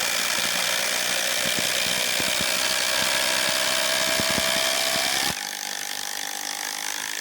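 Two cordless brushless impact drivers, a Ryobi 18 V and a Kobalt 24 V, hammering away at the same time. About five seconds in, one stops and the other runs on alone, quieter, for about two more seconds before it stops.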